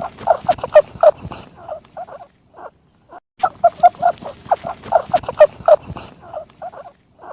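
Rabbit vocalising: a rapid series of short pitched calls, several a second, in two bouts with a brief pause about three seconds in.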